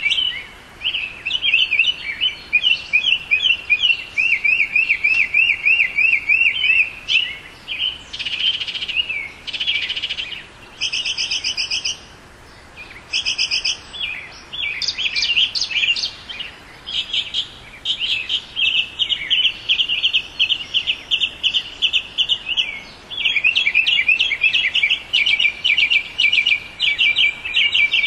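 Northern mockingbird singing: a long run of varied phrases, each repeated several times in quick succession before it switches to a new one.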